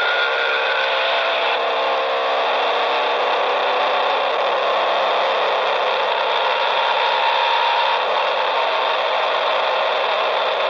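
Chainsaw running steadily, a continuous whirring engine note whose pitch shifts slightly a couple of times.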